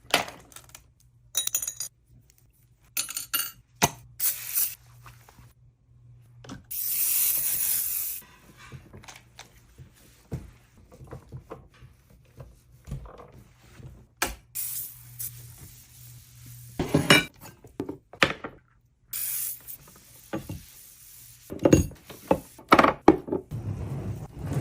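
Household cleaning sounds: a run of clicks, knocks and clinks of objects being handled, with a hiss of just over a second about seven seconds in and another near twenty seconds.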